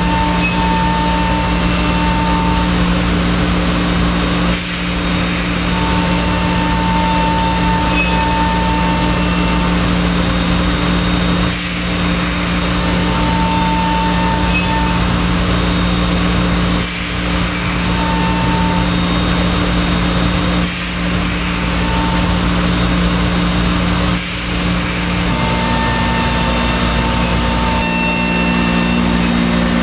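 Thermwood M-90 five-axis CNC router machining MDF: a loud, steady machine hum with a higher tone that comes and goes. Brief dips in level come every few seconds.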